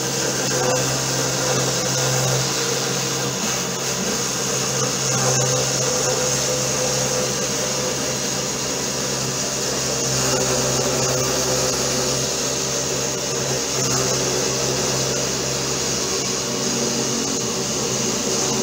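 The 775 DC-motor spindle of a homemade CNC router running steadily as it mills a step into plywood with a 2.5 mm three-flute end mill, feeding along the cut without a break.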